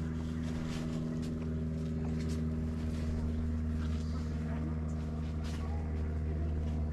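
An engine running steadily at a constant speed, giving an even low hum that does not change.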